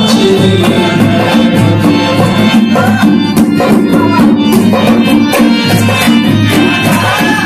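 Instrumental passage of a Shina folk song: harmonium playing a melody over a steady dhol drum beat, without singing.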